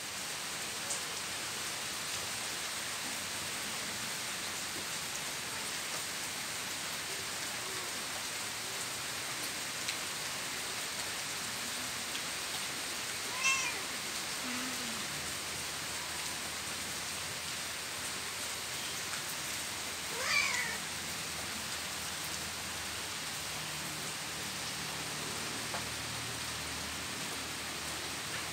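Domestic cats meowing twice, short calls about halfway through and again some seven seconds later, over the steady hiss of rain.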